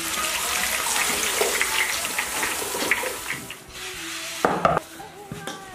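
Hot oil hissing and sizzling around deep-fried eggplant pieces as the wok is tipped out to drain, lasting about three and a half seconds. A short thump follows about four and a half seconds in, as of hands on a floured wooden board.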